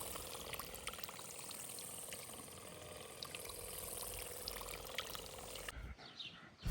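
Faint water sounds, a light trickling and lapping with scattered small ticks and a faint steady hum underneath. It drops away about six seconds in.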